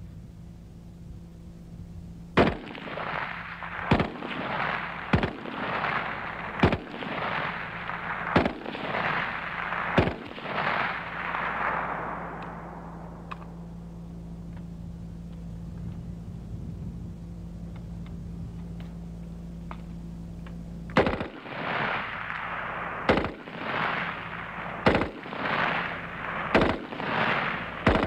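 AK-47 assault rifle (7.62×39 mm) fired in single shots, one every one to two seconds, each shot trailing off in a long echo across the open range. After a lull of several seconds, another string of single rifle shots comes about a second or two apart near the end.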